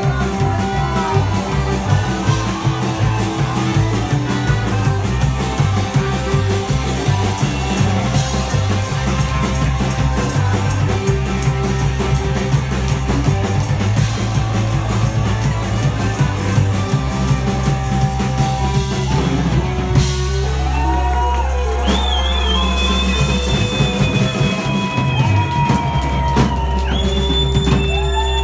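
Rock music with drum kit and guitar and a steady beat. About twenty seconds in, the drums stop, leaving a held low bass with a few high held and gliding tones.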